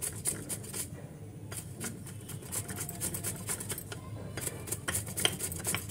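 Bottle gourd (lauki) being grated on a plastic hand grater: repeated rasping strokes, several a second, with two brief pauses.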